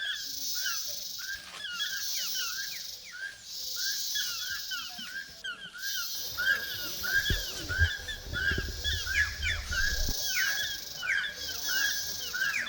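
Mountain forest ambience: many animals calling with short, rapidly repeated chirps, over a high insect buzz that pulses on and off every second or two. A low rumble comes in the middle.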